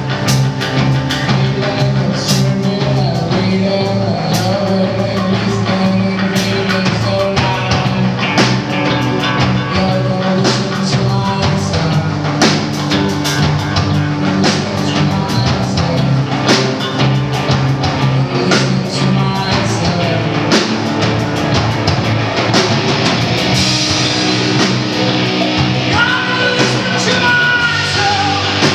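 Rock band playing live: distorted electric guitar, bass guitar and drum kit, with steady drum hits throughout.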